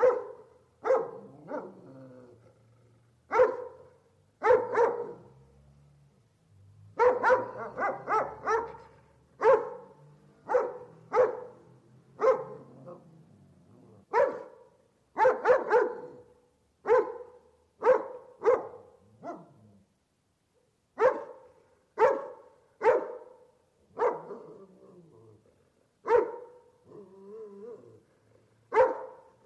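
Large dog barking in rage, in irregular volleys of single barks and quick runs of barks separated by short pauses.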